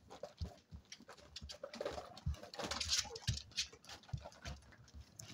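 Seven-week-old spaniel puppies scuffling in play: irregular patter and scrabbling of paws on a wooden floor and blankets, with a few small puppy grunts around the middle.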